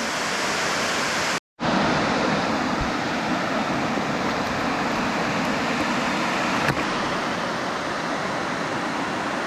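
Steady rush of water pouring over a spillway, broken by a brief dropout about a second and a half in.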